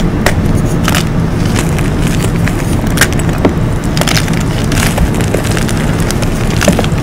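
Blocks of dyed gym chalk being crushed and crumbled between bare hands: irregular sharp crunches and crackles over a steady low rumble.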